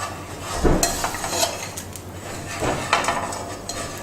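Spatula scraping and knocking on a non-stick tawa as the fried suji toasts are lifted off onto a plate: a few scrapes and clinks, the loudest knock about a second in.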